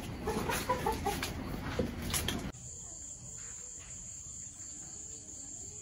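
A stretch of uneven room noise cuts off about halfway in, giving way to the steady, high-pitched chirring of a night-time cricket chorus.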